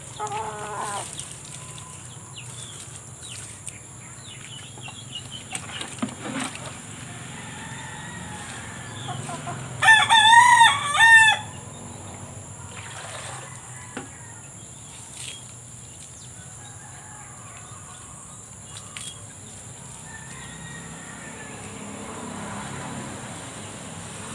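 A rooster crows once about ten seconds in: a single wavering call about a second and a half long, the loudest sound here. A shorter chicken call comes near the start, and a few light knocks sound now and then.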